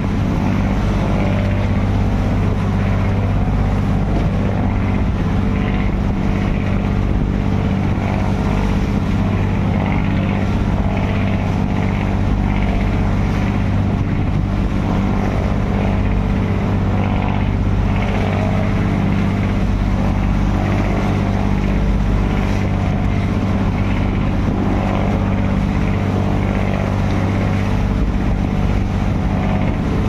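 Fishing boat's engine running at a steady speed, a loud unbroken low drone.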